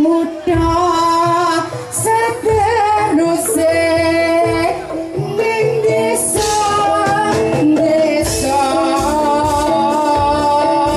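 Live Javanese jathilan music: a singer's voice carried over gamelan with kendang drums. The drum strokes become steadier and denser in the second half.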